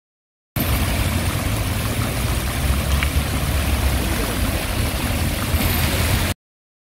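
Fountain jets splashing into a pool: a steady rush of falling water over a low rumble. It starts abruptly about half a second in and cuts off abruptly shortly before the end.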